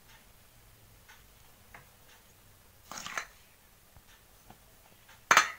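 A few sparse clinks and scrapes of a steel spoon and ladle against stainless-steel bowls while rice flour is scooped and stirred into water for a batter. There is a small cluster of clinks about three seconds in and a single sharper clink near the end.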